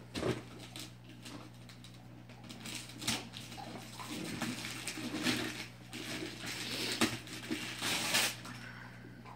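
Gift-wrapping paper being torn and crinkled by hand, in repeated ripping and rustling bursts.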